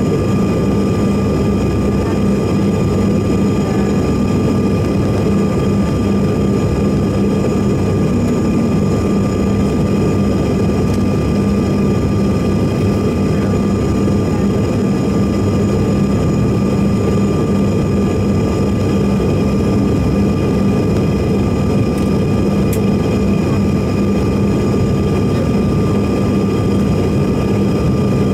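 Cabin noise inside a Bombardier CRJ-900 airliner in flight: the steady drone of its rear-mounted GE CF34 turbofan engines and rushing airflow, with a low hum and several thin, steady whining tones over it.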